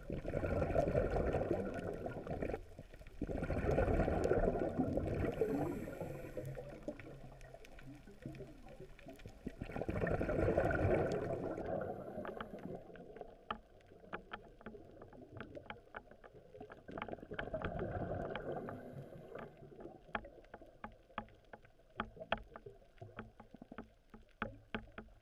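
Underwater recording of a diver's exhaled bubbles: four bursts of bubbling several seconds apart. From about halfway on, a scatter of sharp clicks from the reef comes through between the bursts.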